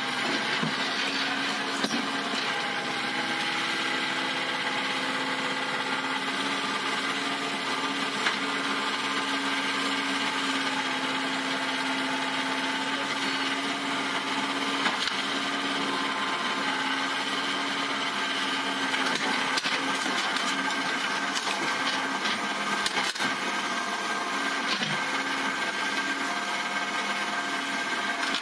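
Doosan mini excavator's diesel engine running steadily under load with a constant whine, as its boom and hydraulics lever the machine upright on a truck bed. Faint scattered clicks and knocks sound over it.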